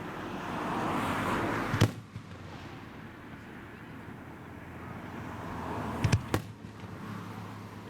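Fireworks shells bursting: one sharp bang about two seconds in, then three quick bangs close together about six seconds in, each after a swelling rush of noise.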